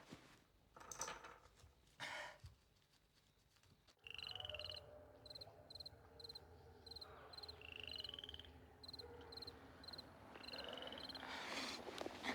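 Faint rustling for the first few seconds, then, after a sudden change about four seconds in, frogs calling. Short high chirps repeat evenly, two or three a second, and a longer rising trilled call comes every few seconds.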